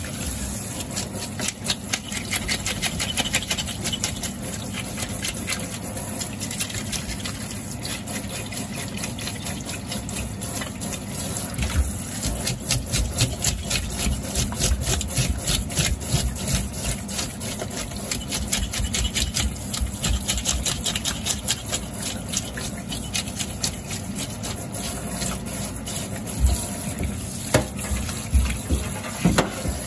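Tap water running into a stainless steel sink while a carp's scales are scraped off with quick, repeated short strokes of a small handheld tool.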